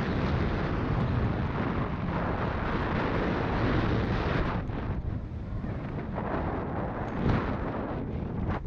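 Wind buffeting an action camera's microphone while a mountain bike is ridden downhill, with a constant rough rumble from the tyres and trail.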